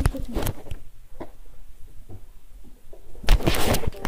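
Scattered light knocks and clicks, then loud rustling and scuffling from about three seconds in, like a phone being handled and moved.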